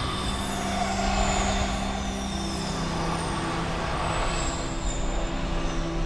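Film soundtrack sound design: a steady low rumbling drone under a held low note, with a few high falling whistles passing over it.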